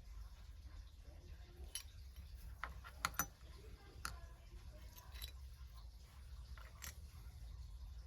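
Faint scattered clicks and light taps of small diecast toy car parts being handled, over a low steady hum.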